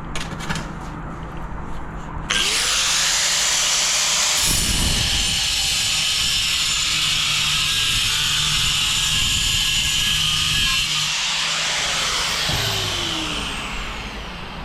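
Power tool cutting a tile to trim it back. It switches on abruptly about two seconds in and runs steadily with a harsh, high grinding. After about nine seconds it is switched off and winds down with a falling pitch.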